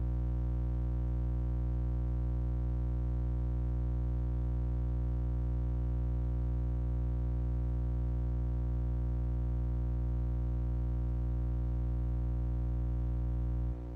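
Steady low electrical hum with many even overtones, a buzz of unknown cause; it drops in level just before the end.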